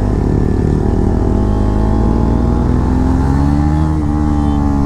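Motorcycle engine and exhaust running under way, the engine note climbing gently about halfway through and easing off near the end.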